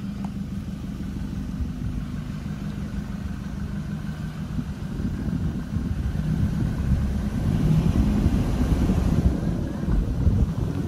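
Car engine running at low speed with road rumble, growing louder in the second half.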